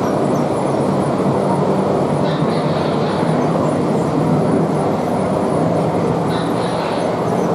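Large-scale model train running along its track: a steady rumble, with two brief higher hisses about two and a half and six and a half seconds in.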